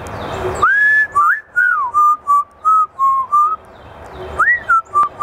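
Grey parrot whistling a tune: a long rising note, then a run of short clear notes stepping up and down, a pause, and a second phrase starting near the end.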